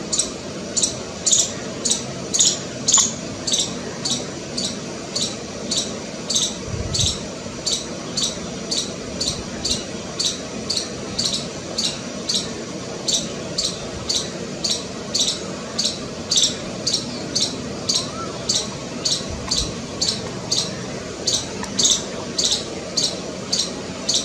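A squirrel giving a long, even series of short, sharp, high chirps, about two to three a second: the repeated alarm call of a frightened squirrel.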